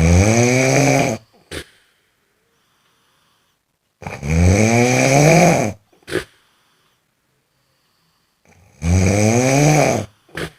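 Snoring: three long snores about four and a half seconds apart, each rising a little in pitch and followed by a short puff, with silence between.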